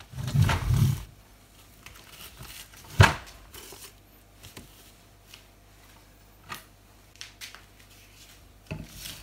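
Handling noises as lathe back-gear parts are picked up and set down on a workbench: a rustle at the start, one sharp metallic knock about three seconds in, then scattered small clicks and taps.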